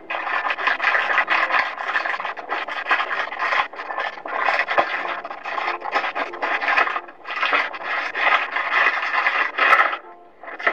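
Clear plastic wrapping crinkling and rustling as hands handle and open it, in irregular bursts with brief breaks and a longer pause near the end. Heard through a television's speaker.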